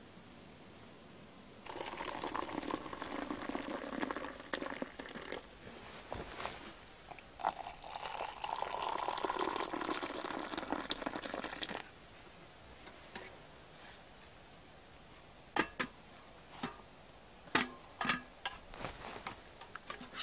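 Water being poured into a vessel for about ten seconds, its sound shifting in pitch as it fills. A few scattered knocks and clicks follow.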